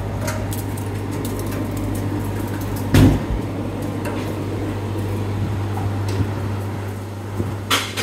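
Flake ice machine running, its compressor and air-cooled condenser fan giving a steady low hum. A sharp knock comes about three seconds in, and a shorter one near the end.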